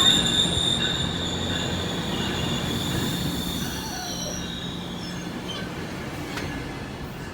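GO Transit commuter train passing, its wheels squealing in a steady high pitch over the low rumble of the train. The squeal and the rumble fade as the train moves away, the squeal dying out about halfway through.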